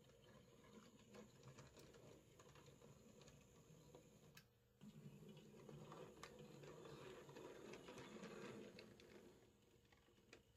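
Faint running of an OO gauge model locomotive: a low whirr with light clicks, as of wheels over rail joints. It drops out briefly about four and a half seconds in, then comes back a little louder.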